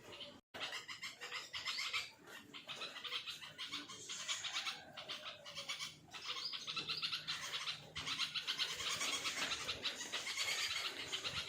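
Bulbul calling in a rapid, continuous run of high chirps, briefly pausing about six and eight seconds in.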